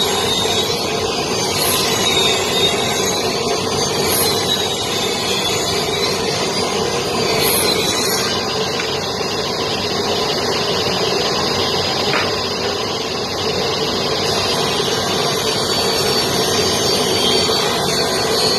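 Large circular saw running and ripping long wooden boards: a steady, loud machine noise with a thin high whine that wavers up and down for the first several seconds, then holds steady.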